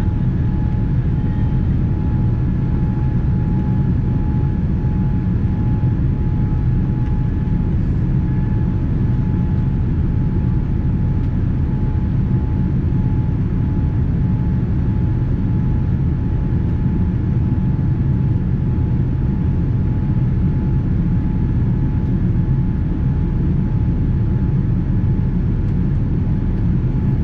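Steady cabin noise inside a Boeing 787-9 airliner: a dense low rumble of engines and airflow with a thin steady whine that fades out near the end.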